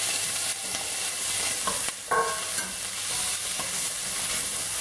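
Freshly added diced kohlrabi, onion and garlic sizzling in hot olive oil in a stainless steel pot, stirred with a wooden spoon. A few short scrapes and knocks of the spoon against the pot stand out over the steady sizzle.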